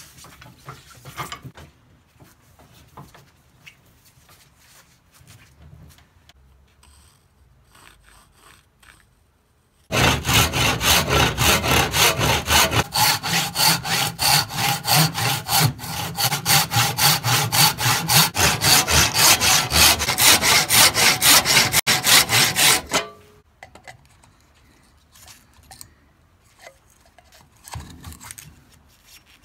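Hand saw cutting through the end of a hickory axe handle in rapid, steady back-and-forth strokes. It starts about ten seconds in after faint handling sounds, runs for about thirteen seconds and stops suddenly.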